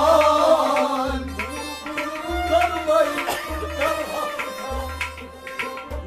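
Kashmiri folk ensemble playing. A clay tumbaknari goblet drum keeps a steady beat, with a deep stroke about every second and a quarter and quicker sharp strokes between, under harmonium, bowed sarangi and singing.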